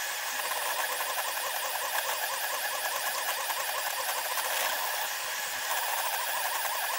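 SeeMeCNC Orion delta 3D printer's stepper motors whirring as the print head moves, sped up so the motor whine comes out as a high, rapidly warbling tone over a steady hiss.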